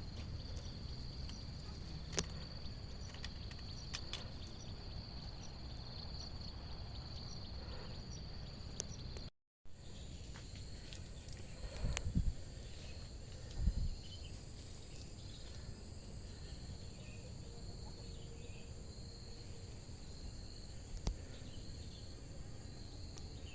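Steady high-pitched drone of insects in the surrounding vegetation, over a low rumble of wind or handling noise, with two short dull thumps a little past the middle. The drone's pitch changes at a cut about nine seconds in.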